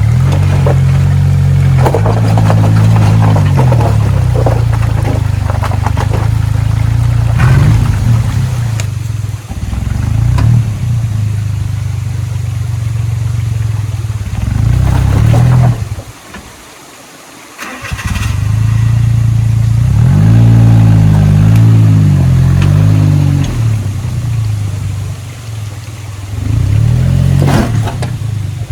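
Suzuki Jimny JA11's small turbocharged three-cylinder engine revving up and down unevenly under load as it crawls over rocks, with occasional knocks. About halfway through, the engine sound drops away for about two seconds, then comes back.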